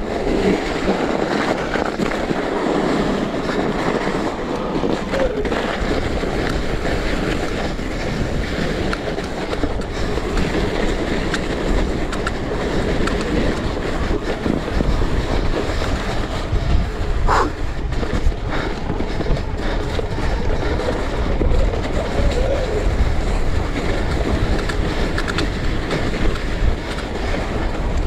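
Electric mountain bike riding down a snowy ski run over rocks: a steady rumble and rattle of tyres, suspension and frame on rough ground. There is one short squeak about two-thirds of the way through.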